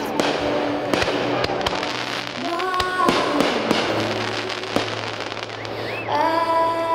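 Fireworks going off: many sharp bangs and crackles in quick succession, with music playing alongside. About six seconds in, a held high musical note comes in over them.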